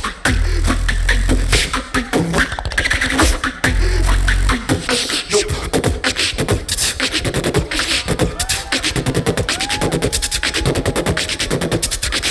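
Live beatboxing: mouth-made deep bass hits under a dense drum pattern for the first four and a half seconds, then rapid crisp percussive clicks with short rising-and-falling pitched vocal sweeps.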